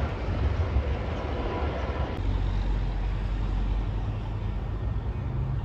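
Low rumble of a diesel freight train, pulled by an EMD GP38-2, moving away down the line, mixed with wind on the microphone. About two seconds in the sound cuts abruptly to a steadier low rumble.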